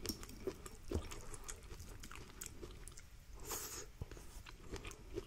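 Faint chewing and mouth sounds of a person eating sweet corn off a spoon, with a few light clicks of the spoon.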